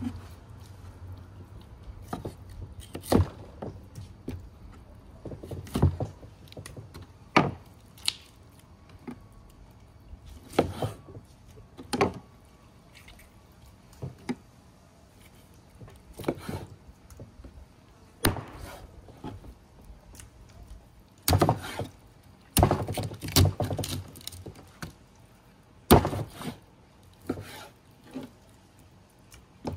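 Knife chopping on a wooden cutting board: single knocks a second or two apart, with a quicker run of several strikes a little past the middle and one sharp hit soon after.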